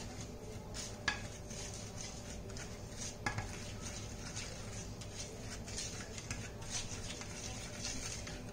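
A metal spoon stirring a liquid soy-sauce marinade in a ceramic baking dish: irregular light scrapes and clinks of metal against the dish.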